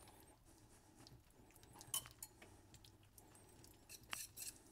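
Faint clinks and scraping of a wire whisk working egg yolks and cold butter pieces in a small stainless steel saucepan, with a sharper tick about two seconds in and another near the end.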